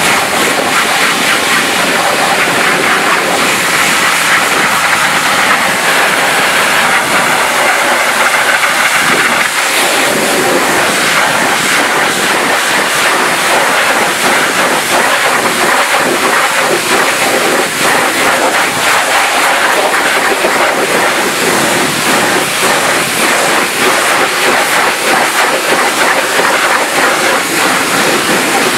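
A pressure washer sprays a jet of water against an alloy wheel and its tyre. It makes a steady, loud hiss whose tone shifts as the jet moves over the wheel.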